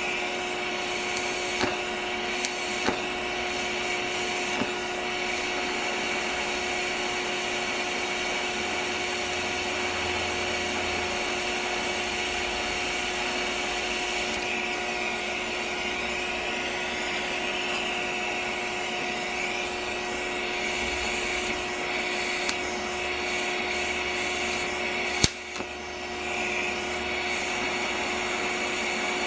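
DC TIG welding arc, running as a steady hiss and buzz with a freshly sharpened tungsten. It is broken by a few sharp clicks and drops out briefly near the end.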